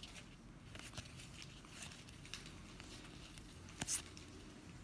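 Topps baseball cards sliding against each other as they are moved one at a time off the front of a stack: a handful of faint soft swishes, with a louder swish near the end.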